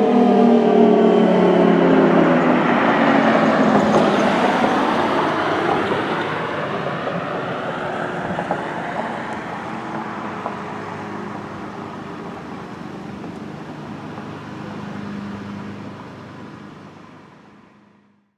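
Federal Signal Thunderbolt 1003 outdoor warning siren winding down at the end of its alert signal. Its pitch falls steadily and the sound fades away over many seconds until it is gone.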